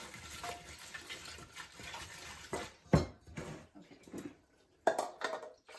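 Cabbage pieces being dropped and tossed in a bowl with water sprinkled over them, with one sharp knock against the bowl about three seconds in and a few lighter knocks near the end.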